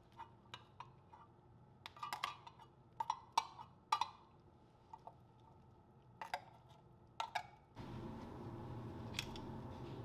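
Irregular sharp clicks and light knocks of cooking at a cast-iron pan of simmering curry as bamboo shoots go in. From about eight seconds in, a steady low hiss takes over.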